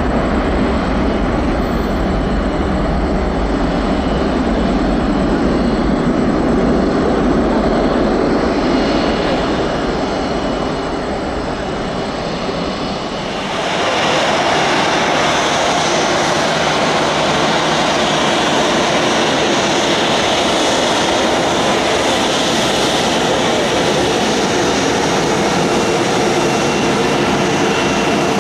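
Jet airliner engines running on the runway, a steady rushing noise. About halfway through it changes abruptly to a brighter, hissier sound with less low rumble, as an Avelo Boeing 737's engines take over.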